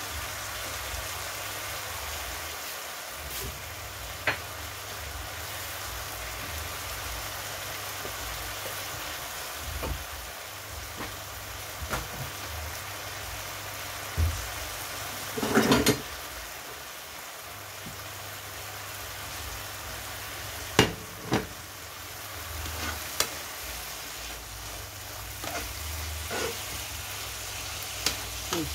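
Garlic spinach steadily sizzling and simmering in a nonstick frying pan as its liquid cooks off, with a few short knocks and clicks of a spoon against the pan.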